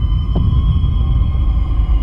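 Dark, suspenseful film score: a deep rumbling drone under sustained high tones, with a low thud about half a second in.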